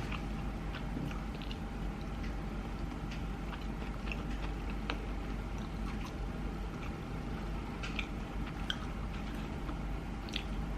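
Person chewing sushi close to the microphone: soft, scattered mouth clicks and smacks over a steady background hum.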